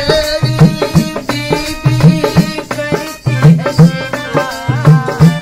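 Hand-played dholak drum beating a steady folk rhythm under sustained harmonium chords.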